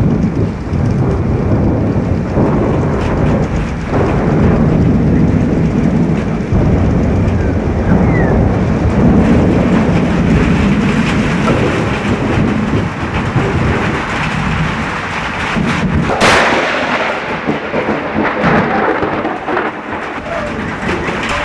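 Thunderstorm: steady rain with thunder rumbling, then about 16 seconds in one sharp, loud crack from an extremely close lightning strike on a large tree.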